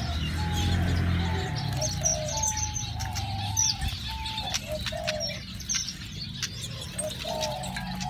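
Aviary birds calling: a continuous run of short, low cooing notes repeated about every half second, with thin high chirps from small finches above it. Brief splashes and wing flutters come from finches bathing in a shallow water bowl.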